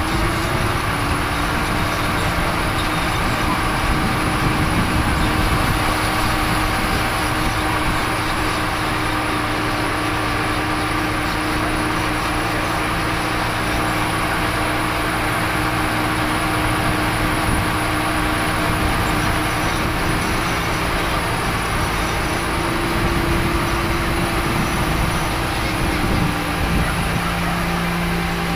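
Diesel engine of an XCMG truck-mounted crane running steadily under load as it hoists a precast concrete girder. Its pitch rises briefly about three-quarters of the way through.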